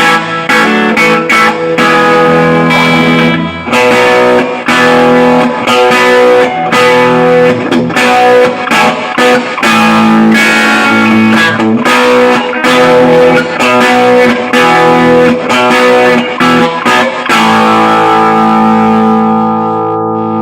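Electric guitar played through an Artist TweedTone20R amplifier: a run of chords with short choppy breaks between them, ending on one held chord that rings out for the last few seconds.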